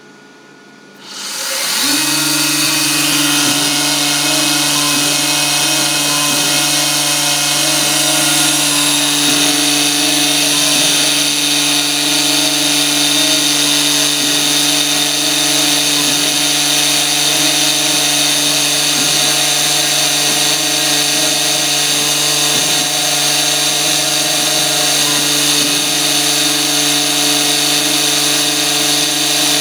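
Engraving machine's spindle starting up about a second in, then running steadily as its cutter engraves lettering into an anodized aluminium motorcycle lever.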